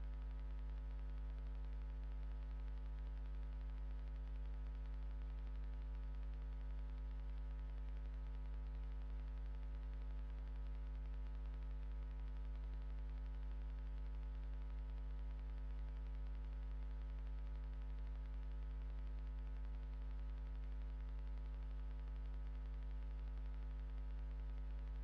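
Steady electrical mains hum with a strong low drone and several fixed higher tones above it, over a faint static hiss.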